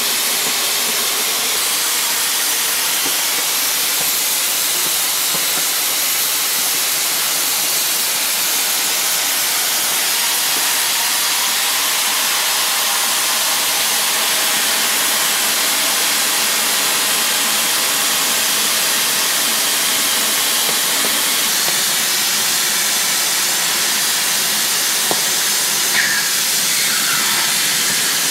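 Oxy-fuel cutting torch burning through 4-inch-thick steel plate: a steady, loud hiss of the cutting oxygen jet blowing molten slag and sparks out through the bottom of the cut. A small click and a brief falling squeak come about two seconds before the end.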